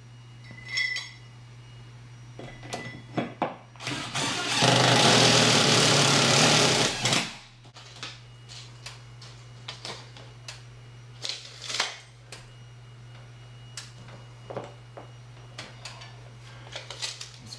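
Cordless drill running hard for about three seconds, boring into a wooden ceiling joist behind the drywall, then stopping suddenly. Scattered small clicks and knocks come before and after it.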